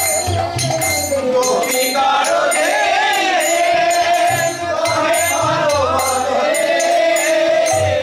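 Devotional music: a voice singing a drawn-out, wavering melody over jingling percussion and a low pulsing drum beat.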